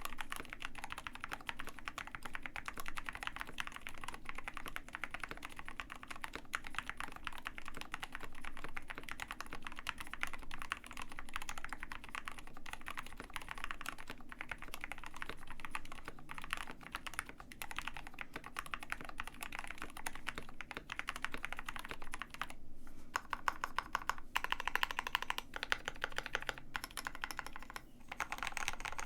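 Continuous fast typing on a KBD67 Lite R2 65% mechanical keyboard with Gateron Black Ink V2 linear switches: a dense run of key clacks, growing louder and denser for a few seconds near the end.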